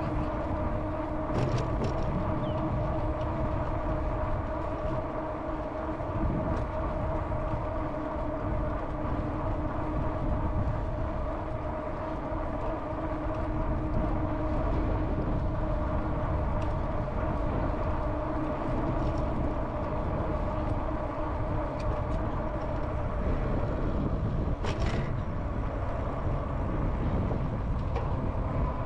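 Riding an e-bike: a steady low rumble of wind on the action-camera microphone and tyres on the pathway, under a steady whine from the e-bike's motor. Two brief rattles, about a second and a half in and near the end.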